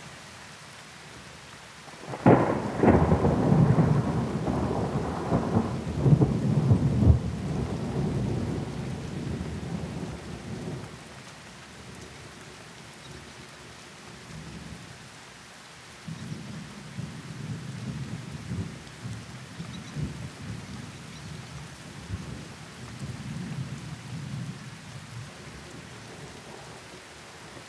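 Thunderstorm: thunder breaks suddenly about two seconds in and rumbles for several seconds before dying away, then a quieter, lower roll of thunder comes in about halfway through, over steady rain.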